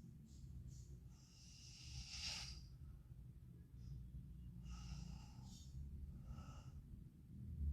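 Faint, slow, noisy breathing of a sleeping woman, with airy breaths a few seconds apart, snoring-like.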